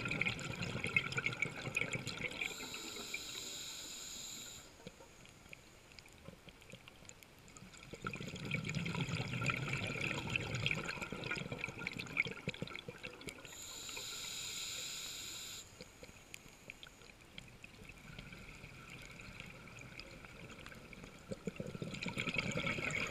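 Scuba diver breathing through a regulator underwater: a bubbling exhalation at the start, another about eight seconds in and a third near the end, with a two-second hissing inhale through the regulator after each of the first two.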